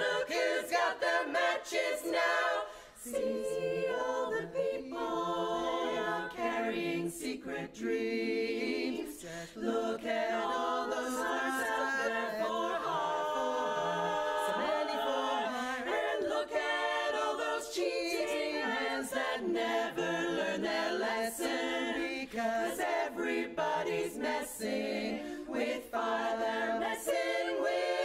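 Women's barbershop a cappella ensemble singing in close harmony, several voices moving together in chords, with brief breaks about three and nine seconds in.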